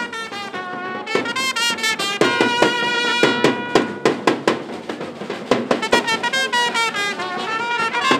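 Street band of trumpets with bass drum and snare drum playing a tune, with a run of sharp drum strikes in the middle.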